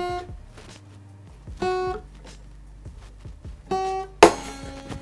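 Guitar being tuned by ear: one string plucked three times, each note ringing briefly, then a louder full strum that rings on.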